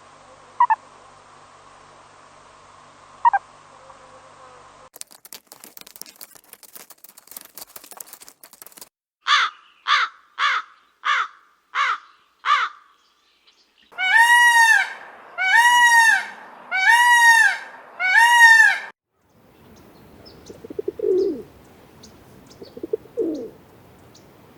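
A string of different animal calls, edited one after another: two short chirps, a stretch of rapid clicking, a run of five short calls, four loud arching cries, then low grunts.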